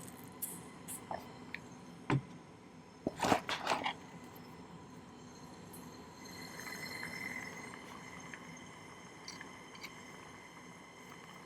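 Light metal clicks and taps of tweezers and small sterling silver wire parts being set against the soldering surface, with a quick run of sharp clicks about three seconds in. A soft hiss follows for a couple of seconds.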